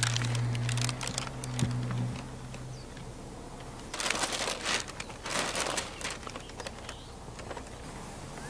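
Plastic crinkling and rustling as the peeled backing film and a flexible solar panel are handled, in two bursts about four and five and a half seconds in, with scattered light clicks. A low steady hum runs through the first two seconds.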